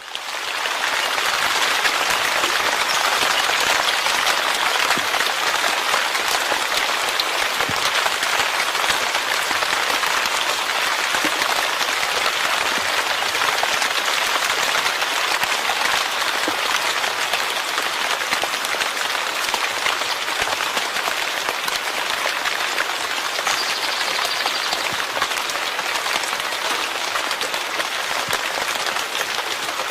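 Steady rain falling: a dense, even hiss of drops that swells up within the first second and then holds constant.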